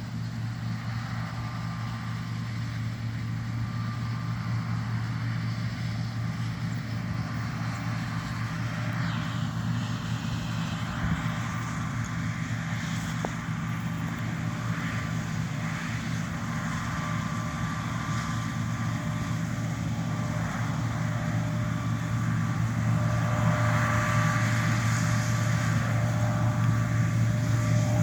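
John Deere T670i combine harvester running with a steady low engine drone and a faint whine, growing gradually louder.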